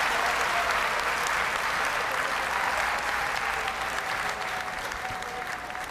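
Large arena audience applauding, the applause slowly dying away.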